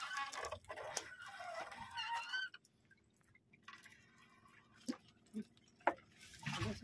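A wavering, pitched call for the first two and a half seconds, like a rooster crowing. Then a wet fishing net is hauled by hand into a boat, with water dripping and a few sharp drips and splats.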